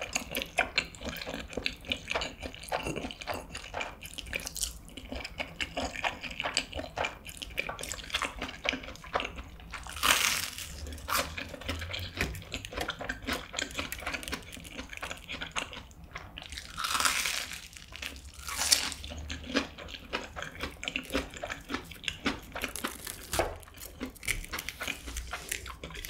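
Close-miked eating sounds: wet slurping of saucy fried noodles and steady chewing, with bites into a fried, breaded cheese pork cutlet. A few louder, noisier bursts stand out about ten seconds in and again around seventeen to nineteen seconds in.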